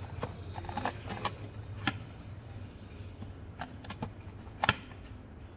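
Cardboard LED bulb carton being handled and turned in the hands: scattered light clicks and taps from fingers on the box, the sharpest near the end, over a steady low hum.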